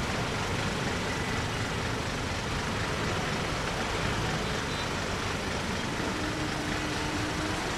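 Steady road-traffic noise from bus engines running close by as buses move across the railway tracks.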